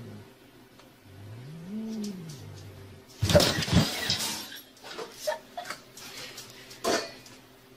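A cat gives one low, drawn-out yowl that rises in pitch, holds and falls away. About three seconds in comes a sudden loud clatter and scuffle as a wooden cupboard door is flung open, followed by a few scattered knocks and a second sharp knock near the end.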